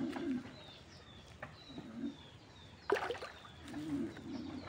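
Birds calling: a short, high, falling note repeated about twice a second, with lower hooting notes now and then. A sharp crackling noise comes about three seconds in.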